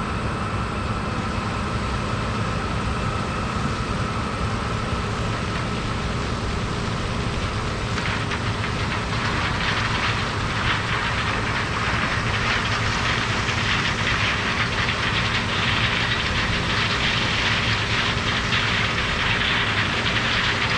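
Diesel harvest machinery running steadily, a low engine rumble throughout. About eight seconds in, a louder rushing, rattling noise joins in and carries on.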